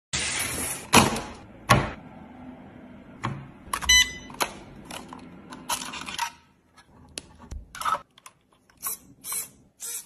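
A short hiss, then a run of sharp separate clicks and knocks, with a brief bell-like ding about four seconds in.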